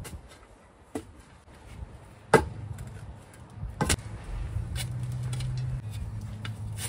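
Wooden boards knocking against each other and the ground as they are handled: a few sharp knocks about a second and a half apart, the loudest a little past two seconds in. A low steady hum comes in about halfway through.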